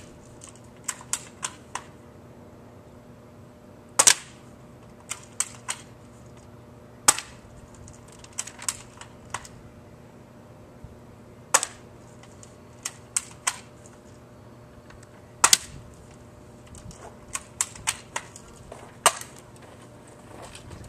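Airsoft M16 rifle firing single shots: five sharp cracks spaced about three to four seconds apart, with quieter clusters of clicks between shots.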